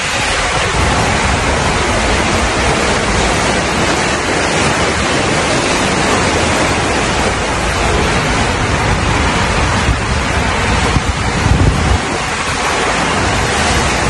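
Rider sliding down an enclosed water slide tube: a steady rush of running water and the rider's body on the slide, with a low rumble and air buffeting the handheld camera's microphone.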